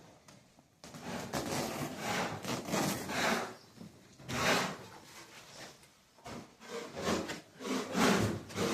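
Rough scraping on wood in several uneven strokes, each swelling and fading over a second or so.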